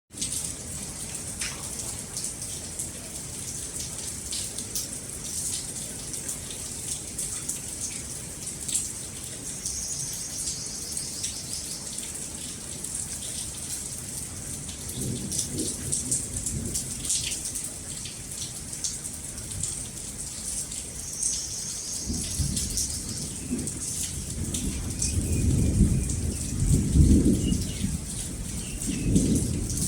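Steady rain falling with a patter of drops, and rolling thunder: a low rumble swells around the middle, then a longer, louder roll builds near the end.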